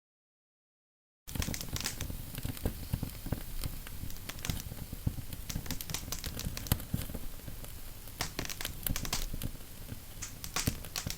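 Dense, irregular crackling noise full of sharp clicks and pops, starting about a second in and cutting off abruptly near the end.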